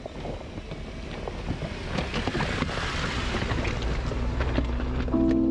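Jeep Wrangler crawling over a rocky trail and passing right over the microphone: tyres crunching and popping on loose rock, with the engine's low rumble growing louder as it goes overhead, and wind on the microphone. Music comes in near the end.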